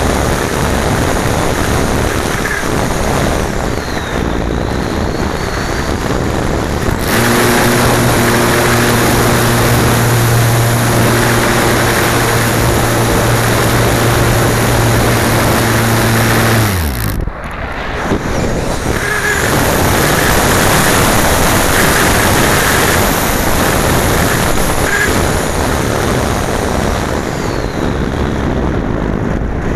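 Wind rushing over an onboard camera on an ST Fox slope glider in flight. About a third of the way in, a steady low hum joins the rush; it drops in pitch and cuts off a little past the middle.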